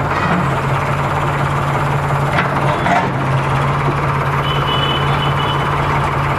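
Tractor diesel engine running steadily, driving a homemade tractor-mounted backhoe as its bucket digs into soil. There are two brief knocks about halfway through.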